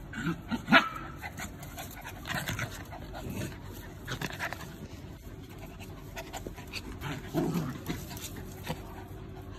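Husky puppies play-fighting: panting with short yips and vocal bursts, the loudest about a second in and another cluster around seven seconds in.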